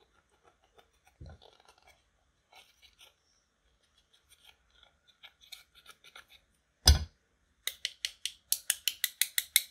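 A pink plastic tool scraping and crumbling pressed eyeshadow and powder out of a plastic makeup compact. Light scratching comes first, then one loud knock about seven seconds in, then a run of quick, sharp scraping strokes, about seven a second.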